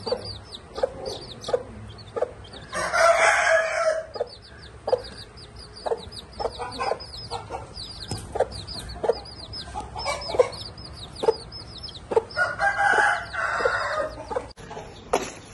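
Chicks peeping rapidly and continuously in short, high, falling notes while a mother hen clucks in short, low calls. A rooster crows twice, about three seconds in and again near the end; these crows are the loudest sounds.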